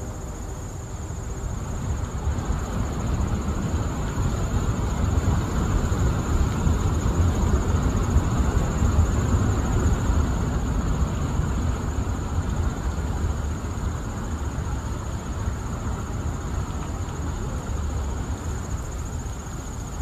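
Steady outdoor background: a low rumble with a continuous, even, high-pitched insect trill over it.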